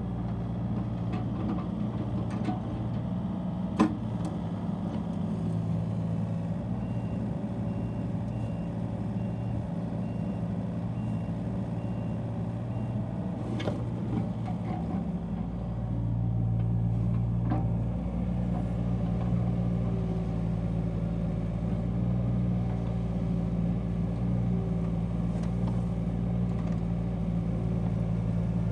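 John Deere 35C compact excavator's diesel engine running steadily while its hydraulics work the arm and bucket in gravel, with two sharp knocks from the working gear. About halfway through, the engine sound gets louder and fuller as the machine is worked harder.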